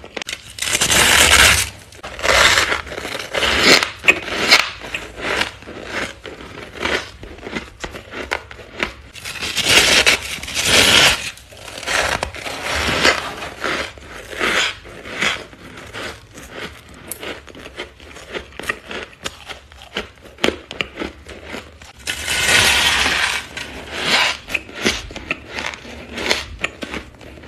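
Thick freezer frost being bitten and chewed: crisp crunching and crackling in irregular spells, loudest about a second in, around ten seconds in and again after twenty-two seconds.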